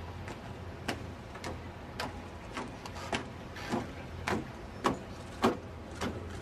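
Steady rhythmic beats, about two a second, getting louder as they go, over a low steady rumble.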